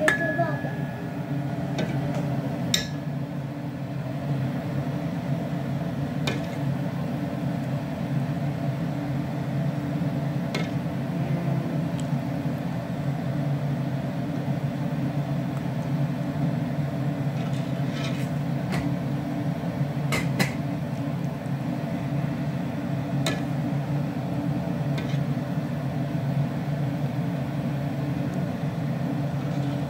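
A metal ladle clinks lightly against a stainless steel pot every few seconds as broth is skimmed off rice, over a steady low hum.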